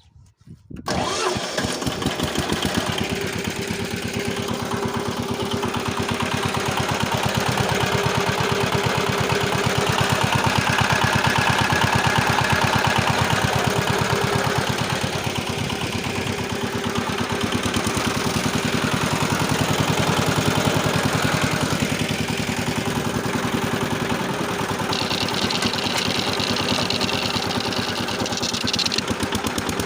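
Walk-behind tractor engine with a rotary tiller starting about a second in, then running steadily with an even, rapid firing beat. A higher whine joins for a few seconds near the end.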